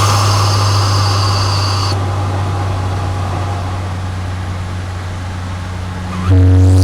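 2022 Subaru WRX's turbocharged 2.4-litre flat-four, heard from the intake, off throttle: a high whine fades out over the first two seconds while the engine note sinks. Near the end the throttle comes back on and the engine note returns suddenly, louder.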